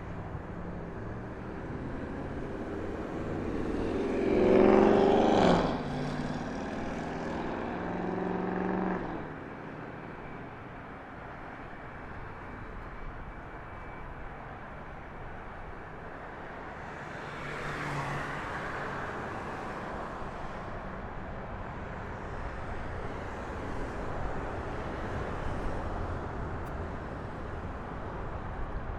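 Road vehicles passing close by: one loud pass about five seconds in with a falling pitch, a fainter one around eighteen seconds, over a steady low traffic rumble.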